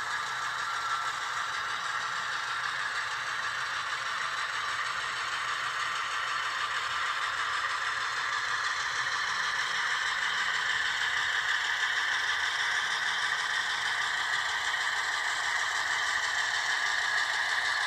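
HO-scale model EMD SW1200 switcher locomotive running slowly along the track with a steady rattling, clattering run, growing a little louder about halfway through.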